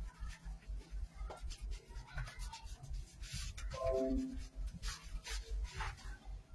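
Hands scrubbing shampoo lather into a wet dog's coat: quick, irregular rubbing strokes, with one short pitched sound about four seconds in.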